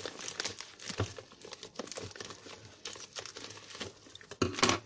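White plastic postal mailer crinkling and rustling as it is cut open with scissors and pulled apart by hand, in many short, irregular crackles, with a louder burst of crinkling near the end.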